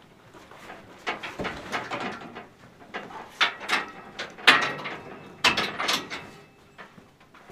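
Clanks and rattles of a metal horse trailer's front bars and fittings being handled: several sharp knocks and clatters, the loudest about halfway through.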